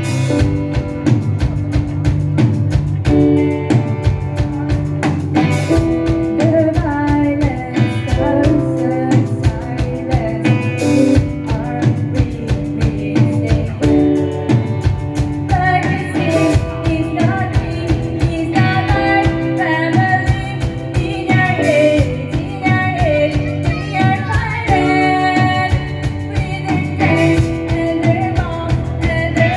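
A live rock band plays: electric guitars, electric bass, drum kit and keyboard, with a singer's voice coming in over them a few seconds in.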